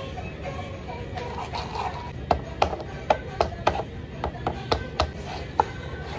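Wooden chopsticks and a cup-noodle container being handled: about ten sharp, irregular clicks and taps in quick succession, starting a little over two seconds in, over faint background music.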